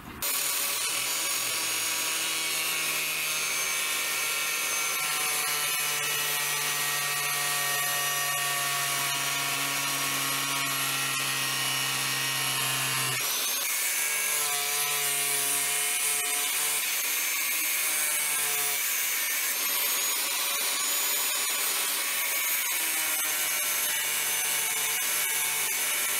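Black & Decker angle grinder with a cutting disc running steadily as it cuts through a thin sheet-metal plate: a continuous high whine over a grinding hiss. The tone shifts abruptly about halfway through.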